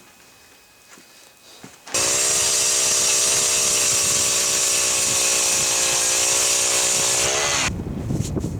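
Power ice auger starting abruptly and running steadily for about five seconds, then its pitch drops as it winds down. Wind buffeting the microphone follows near the end.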